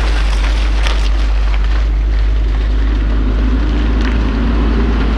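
Heavy coal-hauling dump trucks passing on a muddy haul road: a loud, steady deep rumble of diesel engines and tyres, mixed with wind buffeting on the microphone.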